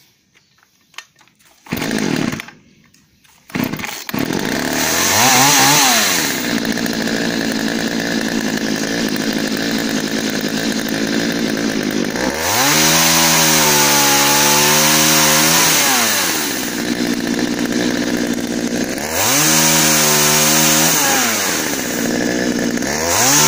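Partner 351 two-stroke chainsaw starting after a short pull of the starter cord, then running. Three times the throttle is opened to high revs and eased off again as thin branches are cut, the engine pitch sagging under load during the first cut.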